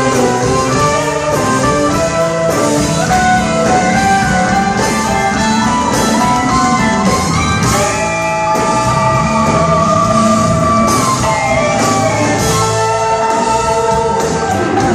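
Live rock band playing an instrumental: electric guitar lead holding long notes and sliding between them over bass guitar and drums, recorded from within the audience.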